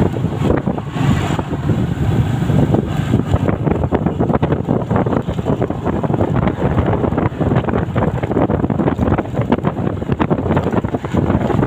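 Wind buffeting the microphone of a moving motorcycle, a loud, gusty rumble over the motorcycle's engine and road noise.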